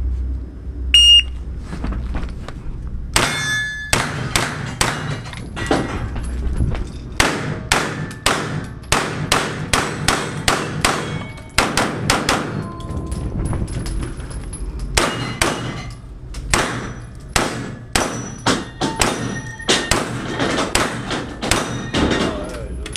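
Electronic shot-timer start beep, then a long string of handgun shots, many fired in quick pairs with short breaks between strings, echoing off the walls of a concrete indoor range.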